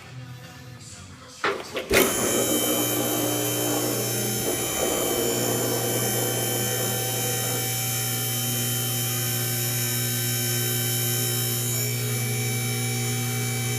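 A couple of knocks about a second and a half in, then a steady machine hum with several constant high whining tones sets in and runs on unchanged.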